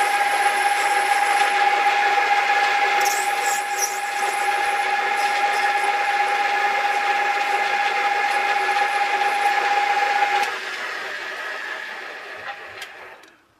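Old metal lathe running, its gear train giving a steady whine. About ten seconds in the whine stops, and the lathe runs down and fades to quiet near the end.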